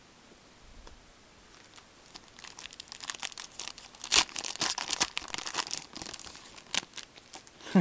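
A hockey trading-card pack's wrapper being torn open and crinkled by gloved hands. It starts about two seconds in as a run of dense crackling rasps, with the sharpest tear about four seconds in.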